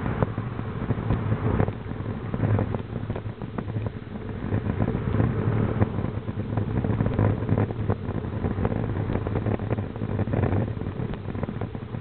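Wind rumbling on the microphone of a camera carried on a moving bicycle, with road noise and frequent small clicks and rattles from the ride.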